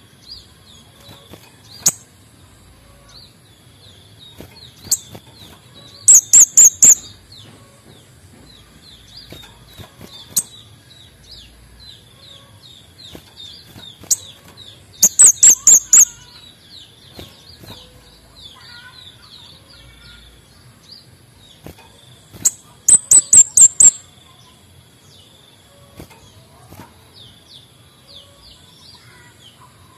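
Male kemade bunga api bird singing: three loud bursts of rapid, very high repeated notes, each about a second long and roughly eight seconds apart, with single sharp chips in between. Fainter, continuous high twittering runs underneath.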